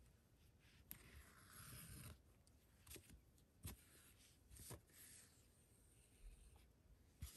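Near silence, with faint rustling and a few soft clicks from hands handling a quilted fabric panel and embroidery thread while tying off a knot.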